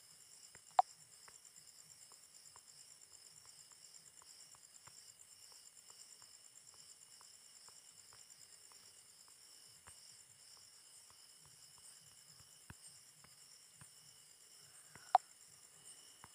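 Faint steady high-pitched insect chirring in the background, with soft scattered ticks and two sharp clicks, one about a second in and one near the end.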